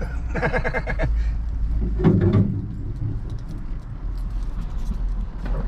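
Pickup truck cab rolling slowly over a rough woods trail: a steady low engine and road rumble, with a louder jolt about two seconds in and light rattling and jingling of loose keys and items.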